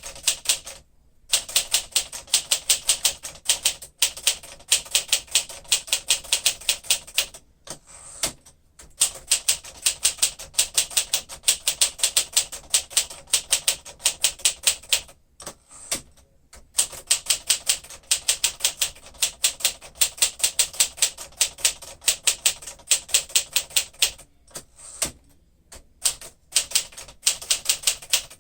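1953 Smith-Corona Super manual typewriter being typed on steadily, rapid key strikes in runs of several seconds with short pauses between.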